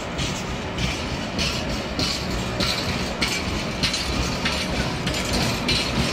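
Heavily loaded flat wagons of a freight train rolling past close by, with a steady low rumble and the wheels clattering over rail joints about every half second.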